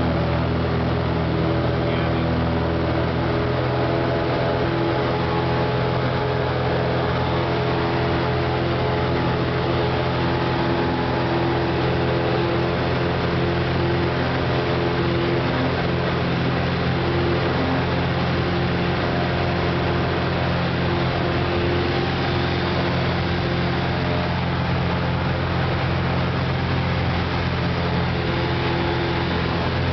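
Cessna 170B's six-cylinder Continental engine and propeller running steadily, heard from inside the cabin, during a ski takeoff run across snow.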